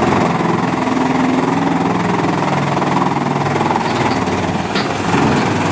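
Heavy machinery engine running steadily, its note shifting slightly in pitch, with a few light knocks: a large mobile wood shredder/grinder at work.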